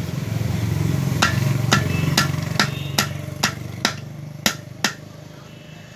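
Light hammer taps on the casing of a 1 HP Cello jet pump motor, about two a second, knocking it apart once its four bolts are out; struck gently because the casing can crack. A low steady hum runs underneath and fades toward the end.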